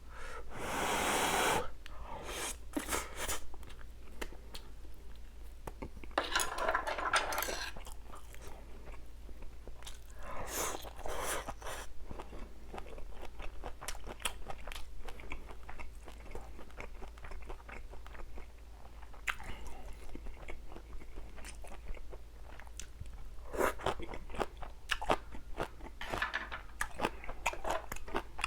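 Close-miked eating sounds: a person biting and chewing a meal of spicy stir-fried pork with raw vegetables, wet chewing with many small crunches. Louder clusters of crunching come about a second in and again around seven, eleven and twenty-five seconds.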